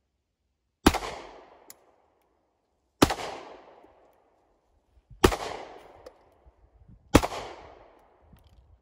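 Four single pistol shots fired slowly, about two seconds apart, each with a sharp crack followed by a decaying echo.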